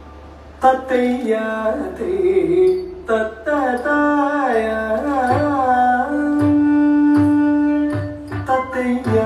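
Carnatic music for a Bharatanatyam shabdam in ragamalika and misra chapu tala: a singer's voice with gliding, ornamented notes starts about half a second in over instruments and a steady low drone, with scattered drum strokes and one long held note in the middle.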